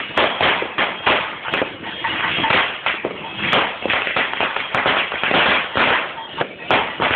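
Fireworks and firecrackers going off in a rapid, uneven string of cracks and pops, several a second, with a crackling hiss between them.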